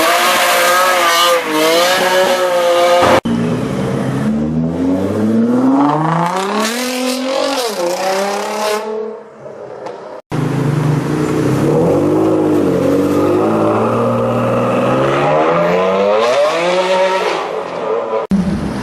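Jaguar F-Type R's supercharged V8 revving hard in several short clips, its pitch climbing and falling repeatedly, with a brief drop-off in the middle.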